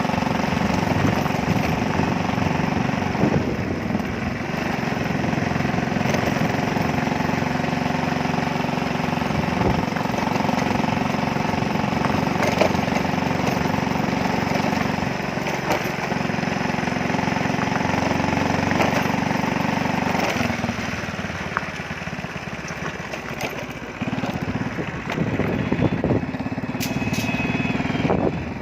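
A vehicle engine runs steadily while driving. Its hum shifts a few times as the vehicle changes speed, along with road and wind noise.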